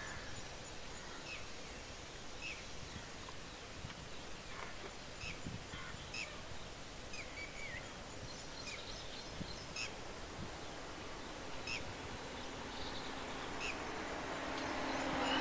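Small birds chirping in short, scattered notes about a second apart over steady outdoor background noise. Near the end a road vehicle approaches, its noise growing.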